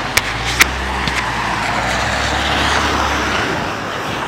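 Road traffic on a rain-wet street: a vehicle's tyre hiss swells to a peak about three seconds in and fades, over a low engine rumble that drops away near the end. Two sharp clicks, about half a second apart, near the start.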